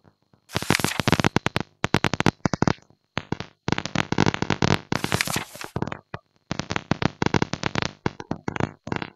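Rapid runs of crinkly paper page-turn sound effects from a digital flipbook as its pages are flipped one after another, dense crackling in bursts with brief gaps.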